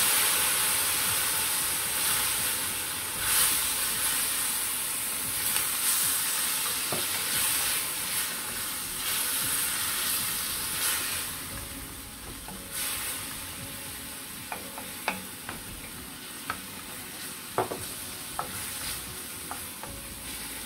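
Onion-and-spice masala sizzling in a stainless steel frying pan just after a splash of water, loudest at the start and slowly dying down, while a wooden spatula stirs it. In the second half there are several sharp taps of the spatula against the pan.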